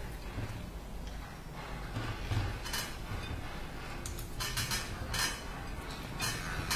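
Small electric screw oil press running with a steady low hum, with several sharp clinks and crackles from peanut kernels in its hopper and screw, most of them in the second half.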